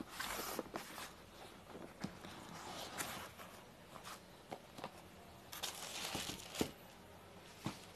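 Hands handling a paperboard phone box on a cardboard sheet: the box rustles and scrapes against the card in three short spells, with a few light taps and knocks.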